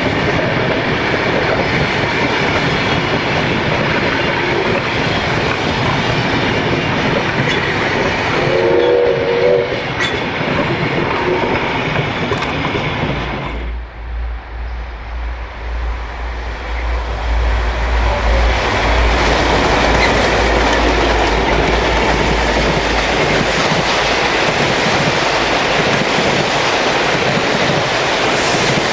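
Passing train carriages running over the rails with a clattering wheel rhythm, and a brief multi-tone train horn blast about nine seconds in. The noise drops about fourteen seconds in to a low rumble, then builds again as a V/Line passenger train comes through, its carriages clacking past.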